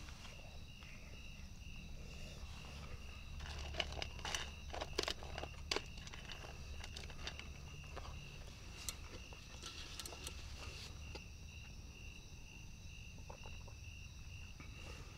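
Night insects trilling in a steady, high, slightly pulsing chorus, with a few sharp clicks of a knife against a plate between about four and six seconds in and again around ten seconds.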